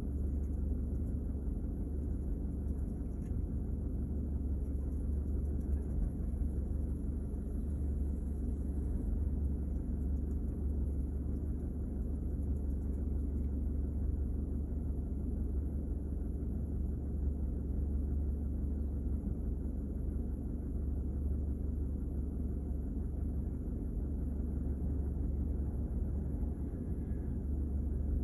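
Steady low rumble inside a stopped car's cabin, unchanging throughout.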